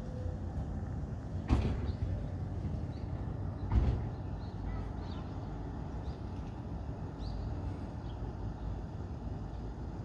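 Steady low rumble of distant city traffic with faint, scattered bird chirps. Two brief louder thumps, about a second and a half in and again near four seconds.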